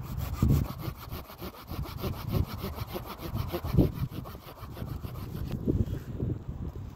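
Saw cutting through a pine branch in quick back-and-forth strokes, with a fast, even rasp of the teeth that stops about five and a half seconds in.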